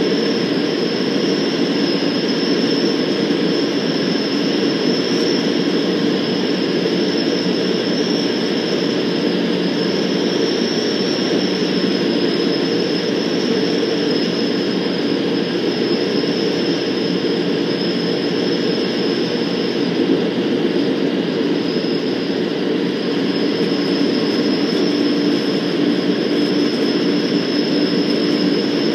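Van's RV-12's Rotax 912 flat-four engine and propeller running steadily, heard from inside the cockpit together with the rush of airflow, with a thin steady high whine above it.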